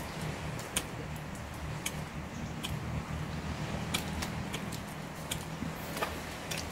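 People eating grilled fish with their hands: scattered sharp clicks and smacks, about eight in all, over a steady low hum.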